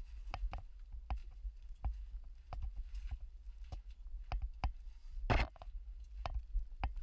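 Irregular knocks and clicks of a caver moving over rock, about two or three a second, with one longer scrape about five seconds in, over a steady low rumble of the GoPro's housing.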